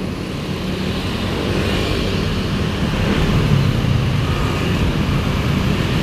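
A large coach's diesel engine drones as it passes at close range over steady road traffic, growing a little louder a few seconds in.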